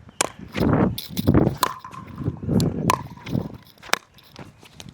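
Pickleball rally: sharp pops of paddles striking the plastic ball, spaced about a second apart, with shoes shuffling on the court. A brief steady squeak comes about halfway through.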